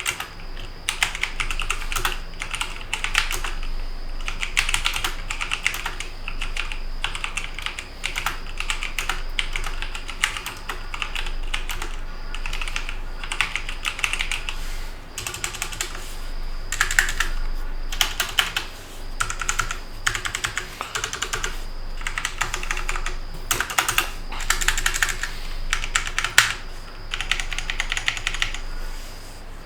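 Typing on a Logitech G512 Carbon mechanical keyboard with GX Brown tactile switches: a steady stream of rapid key clacks with short pauses between runs.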